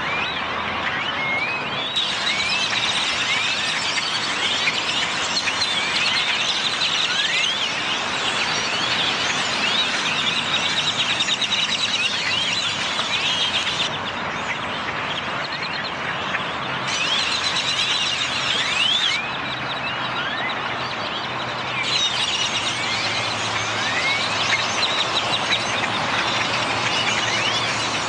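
A large flock of great-tailed grackles calling together as they gather to roost at dusk: a dense, unbroken chorus of many overlapping squeaky rising whistles and chatters.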